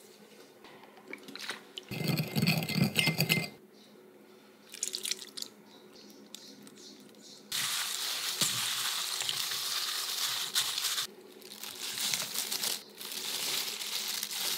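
A spoon stirring seasoning sauce in a small ceramic bowl, about two seconds in. From about halfway, a gloved hand tossing slices of muk (Korean starch jelly) with vegetables and seasoning in a stainless steel bowl: wet squishing and plastic-glove crinkling in stretches of a few seconds.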